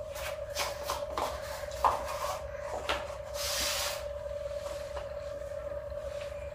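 Scattered light clinks, knocks and a brief rustle of plates and utensils being handled during a meal, over a steady hum. One knock about two seconds in is the loudest.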